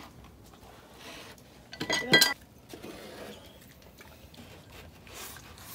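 Tableware clinking on a dinner table: a short cluster of sharp clinks and clatter about two seconds in, from chopsticks, porcelain bowls and a steel serving basin, with faint clatter around it.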